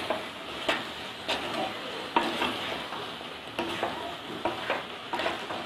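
Wooden spatula stirring chopped vegetables frying in an earthenware clay pot, with irregular scrapes and knocks against the pot over a steady sizzle.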